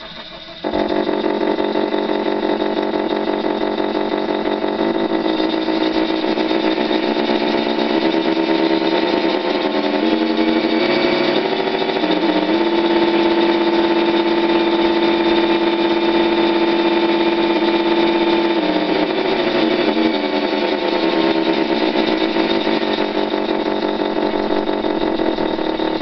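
Engine sound module in a model Springer tug playing a simulated engine through a small speaker. It switches on suddenly about half a second in and runs steadily, rises to a higher, steady engine note in the middle, then settles back down.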